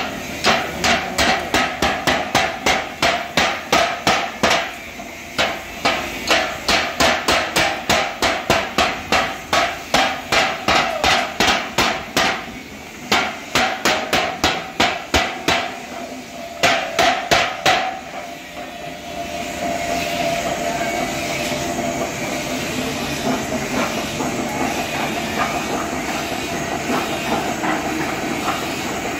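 Mechanical power hammer forging hot steel: a fast, even run of ram blows, about three to four a second, with a few short pauses. The blows stop about two-thirds of the way through, and the hammer's motor and flywheel keep running with a steady mechanical hum.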